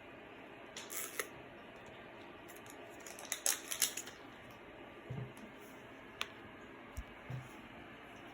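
Small handling noises: a few short clicks and scrapes, with a louder cluster of crackly scraping sounds about three and a half seconds in.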